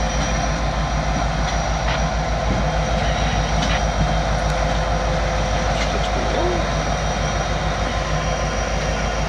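EMD SD60M diesel-electric locomotive, with a 16-cylinder two-stroke EMD 710 engine, rolling slowly past at close range. Its engine runs with a steady, unbroken drone.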